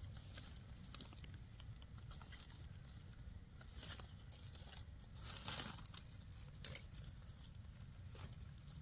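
Faint rustling and crackling of leaf litter with scattered small clicks, and brief louder rustles about four and five and a half seconds in.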